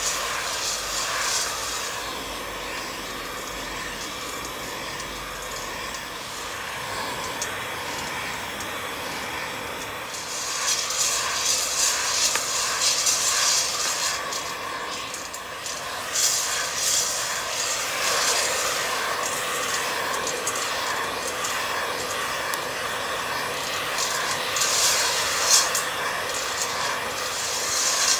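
Heat gun running with a steady blowing hiss while its nozzle stirs roasting coffee beans around a stainless steel bowl. The beans rattle and scrape against the steel, louder in a few stretches of several seconds. The beans have not yet reached first crack.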